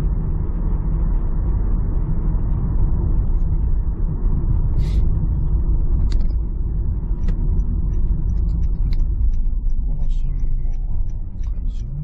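Car interior road and engine noise while driving: a steady low rumble, with a few short clicks on top.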